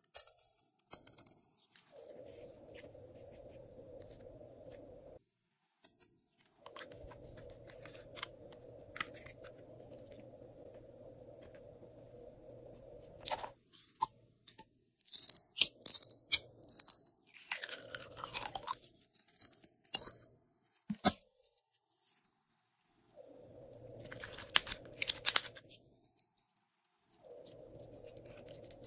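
Clear glossy slime being pulled out of its plastic tub and handled, giving clusters of sticky crackling and popping about halfway through and again near the end. A plastic lid clicks open at the start.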